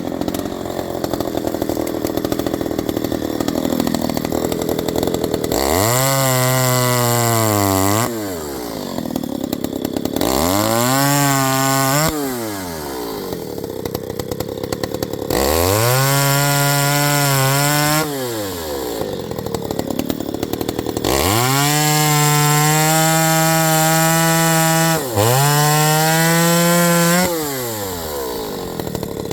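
Stihl 029 two-stroke chainsaw, fitted with a non-original Chinese-made motor and a pipe exhaust, running loud and revved to full throttle five times, for two to four seconds each, its pitch climbing steeply at each blip before dropping back to a lower run between them.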